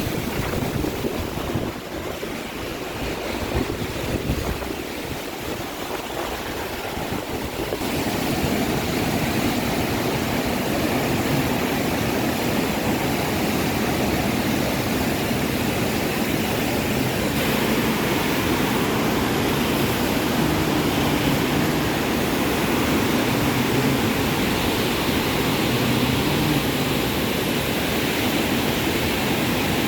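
A river in flood rushing steadily, a dense wash of water noise that grows a little louder about eight seconds in.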